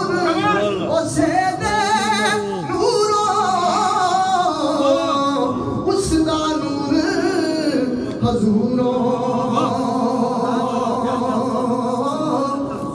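A man singing Punjabi devotional kalam unaccompanied through a microphone and PA, with quick wavering ornaments on the notes in the first few seconds and longer held notes in the second half.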